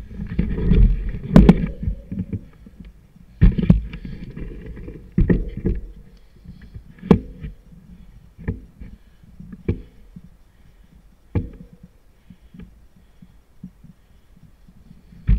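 Handlebar-mounted camera knocking in its unpadded mount as the mountain bike goes over a bumpy trail, under a low rumble of tyres and frame. Sharp knocks come every second or two, heavier in the first half, then thin out to lighter ticks.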